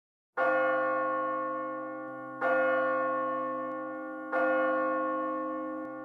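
A large bell tolling three times at the same pitch, about two seconds apart, each strike ringing on and slowly fading.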